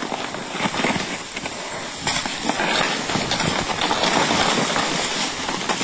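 Team of sled dogs running in harness over the snow trail: a rapid, continuous crunching of paws on snow mixed with the sled runners scraping and hissing along the trail.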